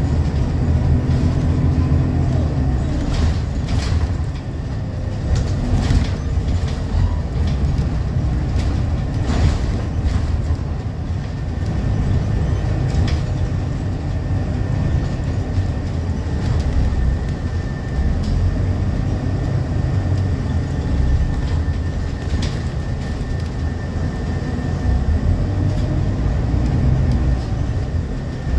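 Interior of a Scania L94UB bus under way: the engine and driveline drone low and steady, with a few sharp knocks and rattles spread through. A faint thin whine comes in about halfway through and holds.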